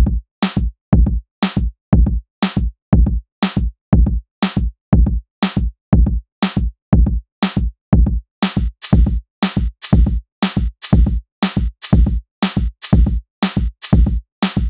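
Electronic background music built on a drum-machine beat: deep kick-drum strikes about two a second with short silent gaps between them, and a hissy high layer joining about halfway through.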